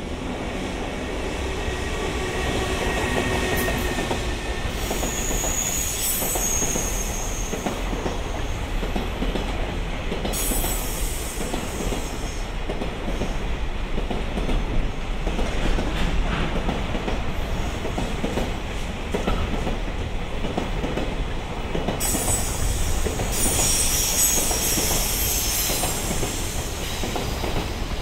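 Freight train rolling through, its wheels clicking over the rail joints, with high-pitched wheel squeal coming and going several times.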